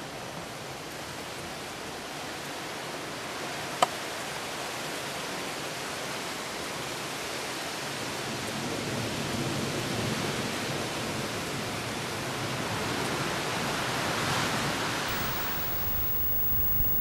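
Steady rushing hiss of thunderstorm rain and wind, swelling gradually to its strongest about fourteen seconds in, then easing off. A single sharp click about four seconds in.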